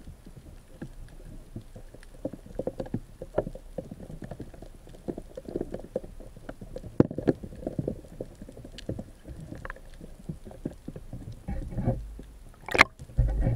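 Muffled underwater handling noise through an action camera's waterproof housing: irregular low knocks and clicks over a low rumble of moving water, with one sharp loud click near the end and a low surge just after it.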